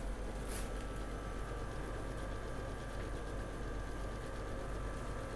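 Steady low hum and faint hiss of room background noise, with one faint brief rustle about half a second in.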